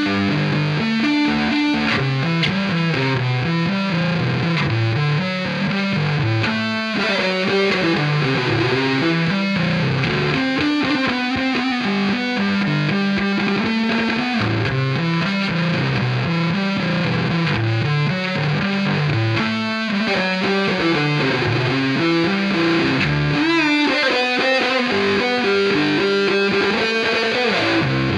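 Unaccompanied electric bass guitar solo played through distortion and a wah pedal, a melodic line stepping up and down in the low register.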